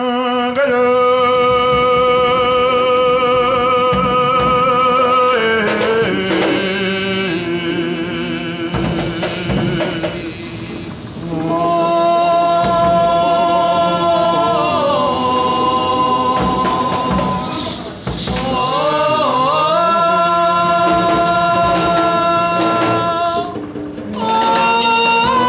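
Garifuna folk song: a voice sings long, held phrases into a microphone over Garifuna drums and light percussion, the singing pausing briefly between phrases.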